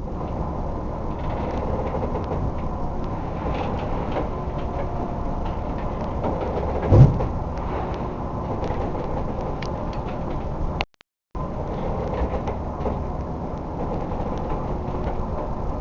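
Crab boat in a heavy storm: the engine drones steadily while the vessel creaks and rattles, with one heavy thump about seven seconds in. The sound cuts out for a moment about eleven seconds in.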